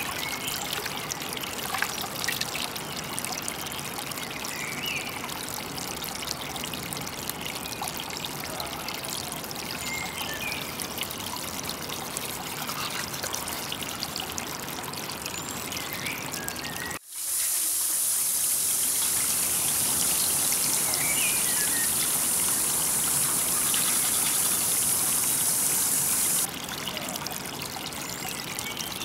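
Shallow stream water trickling steadily over rocks into a pool. A little over halfway through, the sound drops out for a moment and a loud, steady high hiss comes in over the water for about nine seconds, then stops suddenly.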